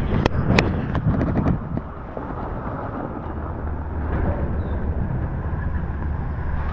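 Snowboard sliding over a snowy piste, with wind rushing on the microphone. Several sharp clicks in the first second and a half, then a steadier, slightly quieter rush.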